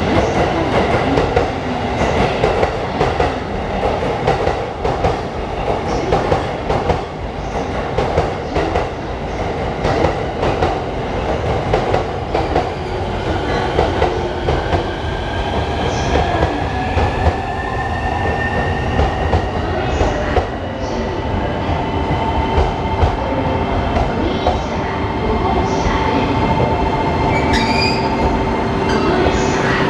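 Electric passenger train running on rails: a steady rumble with many small clicks from the wheels over the track, and a high whine that slowly rises in pitch through the middle.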